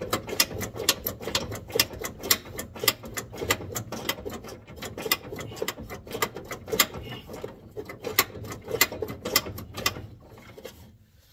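Ratchet wrench clicking in a steady run of quick strokes, about four clicks a second, as a car door bolt is backed out; the clicking stops near the end.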